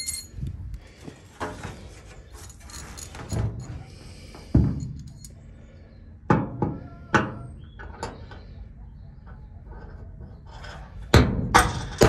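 Hammer blows driving a fixing through tin sheeting: a few scattered strikes, then a quicker run of loud blows near the end.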